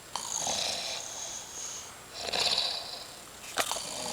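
Snoring: two long breaths, the first lasting over a second and a half, with a short sharp click about three and a half seconds in.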